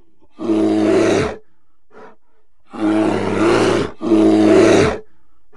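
Bear roaring: three deep roars, each about a second long, the last two nearly back to back, with a faint short breath between the first and second.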